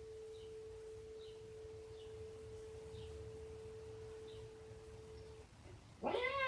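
A single steady pure tone at one pitch, held for about five and a half seconds and then cutting off, with a few faint short high chirps behind it. A cat meows loudly near the end.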